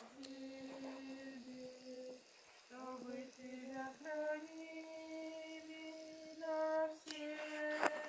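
Slow singing in long held notes, stepping from one note to the next, with a short break about two and a half seconds in. A couple of sharp clicks near the end.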